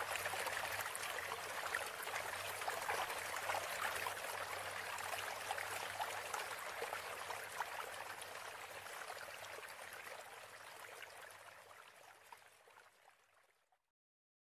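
Faint, even rush of trickling water with a low hum beneath it, fading away to silence about twelve seconds in.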